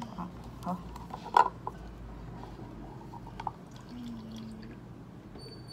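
Saline solution poured from a plastic bottle into a plastic measuring cup, with a few sharp plastic clicks and knocks as the bottle and cup are handled; the loudest comes about a second and a half in.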